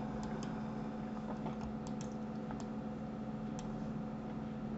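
A few scattered, irregular clicks of a computer mouse and keyboard at a desk, over a steady low hum.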